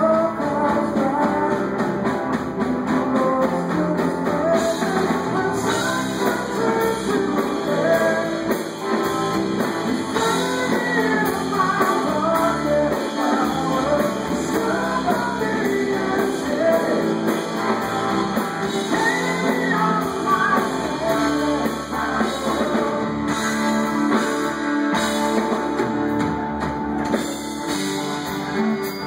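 Rock power trio playing live through a club PA: electric guitar, electric bass and drum kit, with a sung lead vocal over them.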